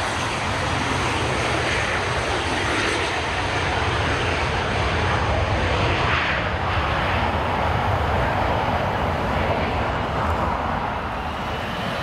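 Jet engines of a twin-engine business jet on the runway, running steadily: a broad rumble with a faint high whine.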